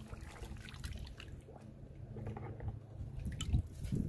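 Water sloshing and dripping in a plastic bucket as a gloved hand stirs it, with a few small splashes.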